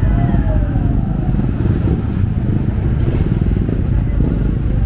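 Steady low rumble of motor traffic, with people's voices in the crowd; a voice calls out briefly just after the start.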